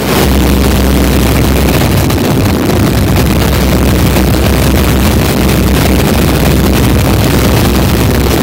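Open-cockpit biplane in level flight: the engine and propeller run loud and steady, under a constant rush of wind noise.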